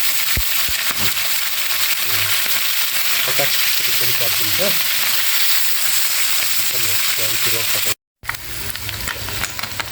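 Small rohu fish fry deep-frying in hot oil: a steady sizzle that breaks off for a moment near the end, then comes back with sharper crackles.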